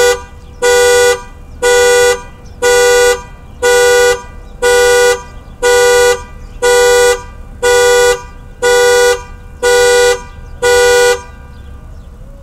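Car alarm sounding a two-tone car horn in regular half-second honks about once a second, twelve times, stopping shortly before the end; set off on a car hoisted by a tow truck.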